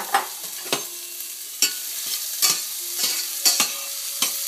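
Chopped onions and garlic sizzling in olive oil in a hot stainless steel pan, the pan heated a little too hot. A spatula scrapes and clicks against the pan as the vegetables are stirred, in an irregular run of sharp strokes about every half second.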